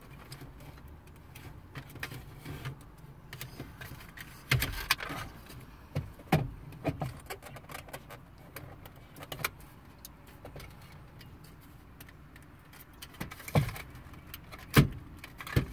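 Plastic wiring plugs being handled and pushed into the switches of a Saturn L200 radio bezel: irregular small clicks and rattles. The louder clicks come a few seconds in and near the end.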